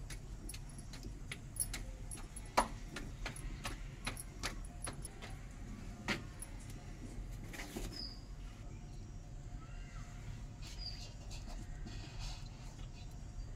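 Wood fire crackling in a clay chulha under an iron tawa, a run of irregular sharp clicks and snaps that thins out after about eight seconds. In the first few seconds these mix with hand slaps of roti dough being patted flat between the palms.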